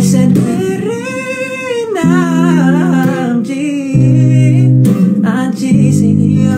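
A young man singing over a steady instrumental backing, his voice sliding and wavering between notes in short phrases.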